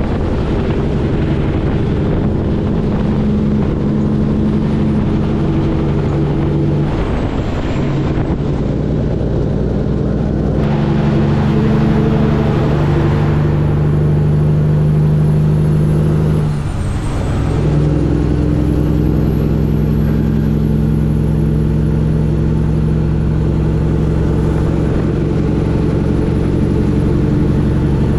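Kenworth W900 semi-truck's diesel engine running steadily under way on the highway. Its low note breaks off briefly and picks up again about two-thirds of the way through.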